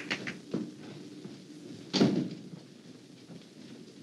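A door shut with a bang about two seconds in, after a few faint knocks.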